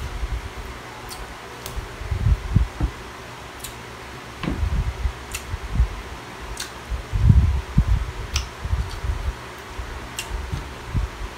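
An electric fan runs steadily under the sounds of someone eating by hand: sharp little mouth clicks and smacks while chewing, and a few soft low thumps.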